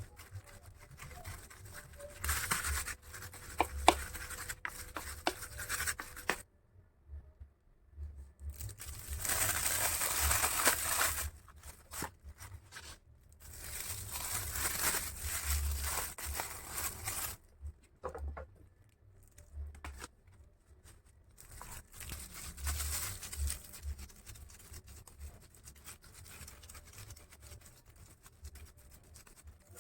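Food-preparation handling noises: scraping and rustling in bursts of a few seconds each, with several sharp clicks in the first few seconds.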